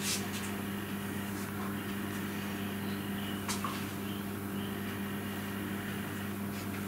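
A steady low hum from kitchen equipment or mains electrics runs throughout. There are one or two faint soft taps, the second about three and a half seconds in, as tomato slices are laid on pastry on a metal baking tray.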